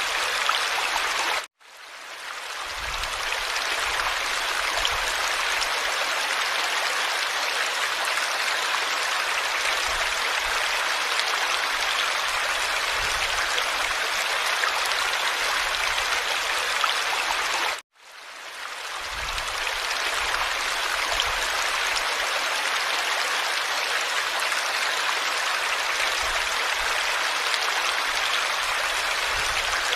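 Running water, like a stream, a steady rushing and trickling. It cuts out suddenly twice, about 1.5 seconds in and again about 18 seconds in, then fades back up over a second or two each time: the seams where the recording loops.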